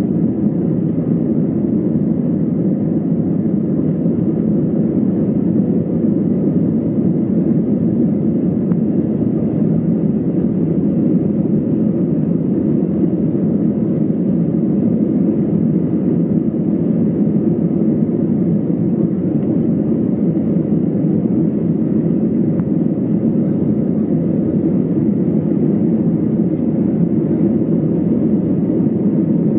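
Airbus A320's jet engines at takeoff thrust, heard from inside the cabin over the wing: a steady, deep noise as the airliner lifts off and climbs.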